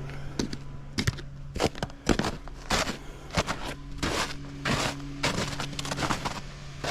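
Irregular crunching footsteps on loose soil, a few a second, with a machine engine running steadily underneath.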